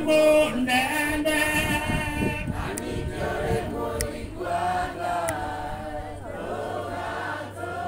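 A crowd of voices singing a Kikuyu hymn together, with no instruments.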